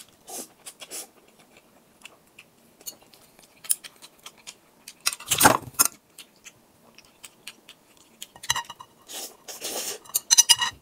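Close-miked eating: noodles chewed and slurped, with small clicks of metal chopsticks against a glass bowl. The loudest sound is a noisy burst about five seconds in, with more near the end.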